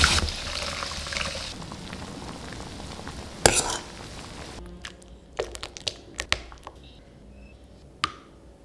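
Thick blended mushroom soup pouring into a steel pan, the pouring fading out after about a second and a half. Then a metal ladle knocks once sharply and clinks lightly several times in the pan, and a spoon gives one ringing clink against a bowl near the end.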